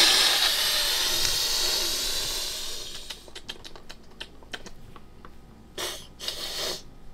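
A long cat hiss that starts loud and fades over about three seconds, followed by light clicking and rustling, then two shorter hisses near the end.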